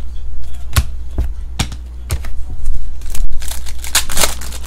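Trading cards flicking as they are thumbed through one by one, four sharp clicks about half a second apart. Then, a little after three seconds in, a foil Panini USA Baseball Champions pack wrapper is torn open, a dense crackling rip.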